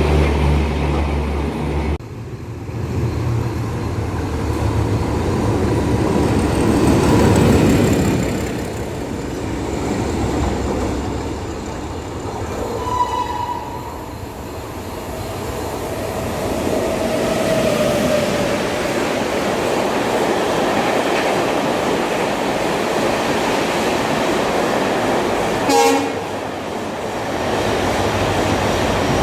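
Trains running through a station: a continuous rumble of wheels on the track, with a sudden change about two seconds in. Two short horn toots, one about halfway and one near the end.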